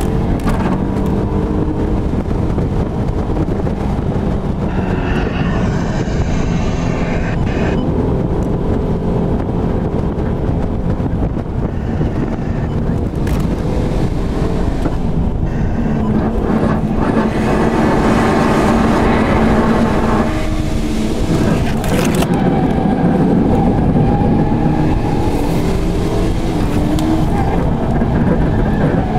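Car engine running hard, its note rising and falling with the revs, heard from inside the cabin of a car chasing a drift car on a winding road, with steady road and wind noise underneath.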